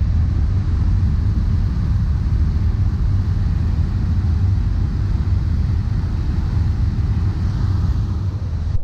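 Ferry under way, heard from its stern deck: a steady low rumble with a rushing hiss from the churning propeller wake.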